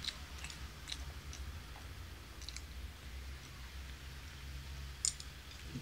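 Someone eating a meal: faint chewing and scattered small clicks of tableware, with a sharper click about five seconds in, over a low steady hum.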